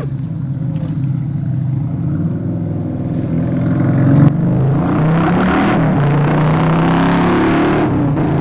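Motorcycle engine revving as the bike accelerates, getting louder about four seconds in as its pitch climbs.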